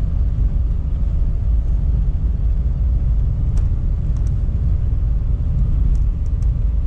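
Lada Niva Travel driving on a snow-covered road, heard from inside the cabin: a steady low rumble of engine and tyres on snow, with a faint steady whine and a few light ticks about halfway through.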